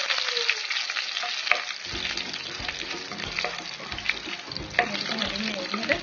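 Dried red chillies and cumin seeds sizzling and popping in hot oil in a non-stick wok, with many small pops over a steady hiss. A wooden spatula stirs them through the oil, adding a low stirring sound from about two seconds in.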